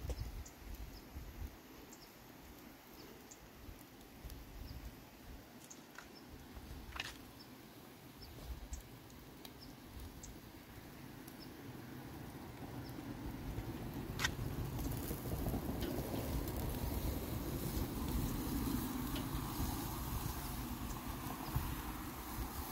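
A low fluttering rumble with a few sharp clicks, then beef steaks sizzling over charcoal on an open grill: a steady hiss that builds from about halfway through and stays loud.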